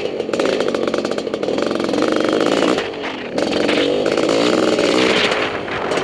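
ATV (quad bike) engine revving, its pitch rising and falling with the throttle, with a brief throttle-off dip about three seconds in.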